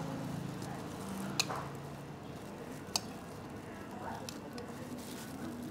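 Metal tongs and spoon clinking against a glass as pieces of carica fruit are put in: two sharp clinks about a second and a half apart, then a few fainter ticks, over a low steady hum.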